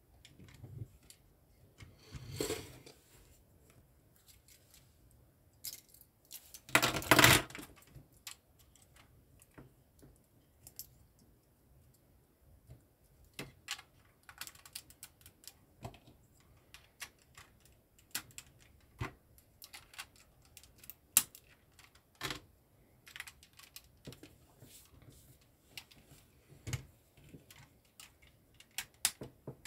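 Plastic LEGO pieces clicking and rattling as they are handled and pressed together: many small irregular clicks, with a longer, louder rattle about seven seconds in.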